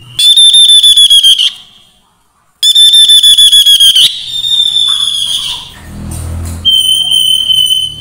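Tepus babbler calling: two rapid trills of sharp, high whistled notes, then a drawn-out whistle and a steady high note near the end.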